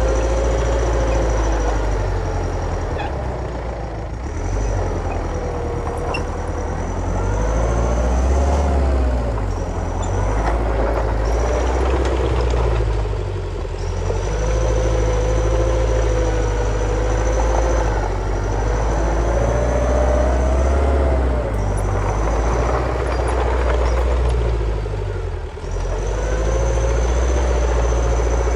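Heavy diesel construction machinery running under varying load, its engine note rising and falling, with a high thin whine that comes and goes.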